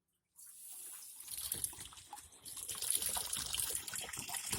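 Water running into the wash tub of a twin-tub washing machine as it fills. It starts about half a second in and grows louder about three seconds in.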